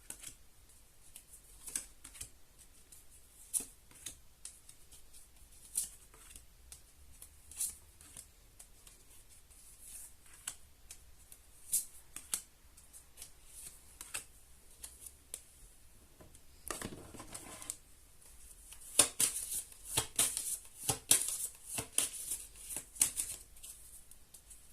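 Tarot cards being handled: a single crisp card snap or tap every couple of seconds, then the deck shuffled with a dense run of crackling snaps in the last few seconds.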